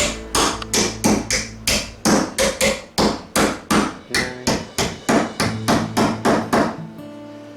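Hammer striking a nail over and over, about three blows a second, driving it down flat into a timber stud; the blows stop about seven seconds in.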